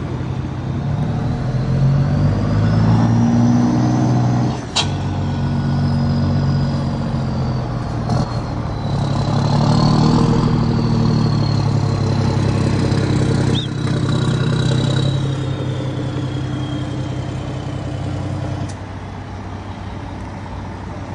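Scania truck's diesel engine running through an open exhaust diffuser, a deep rumble that rises and falls as it pulls under load. There are a couple of sharp breaks, and a thin high whistle glides above it. It eases off to a lower, quieter note near the end.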